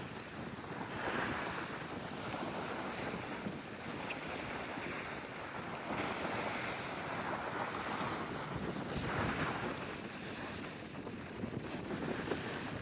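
Sea waves washing in and out, swelling every few seconds, with wind rumbling on the microphone.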